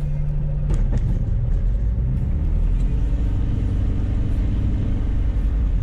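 Sling 4's Rotax 914 Turbo aircraft engine running on the ground just after start-up, its pitch rising about two seconds in.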